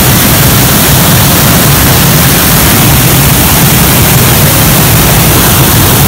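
Waterfall crashing onto rocks at close range: a loud, steady rush of falling water that never lets up.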